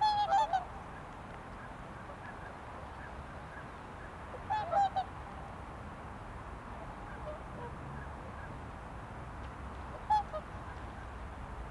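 Waterfowl calling in short, harmonic calls: a quick series right at the start, another cluster about halfway through, and one or two more near the end, over a steady low background hiss.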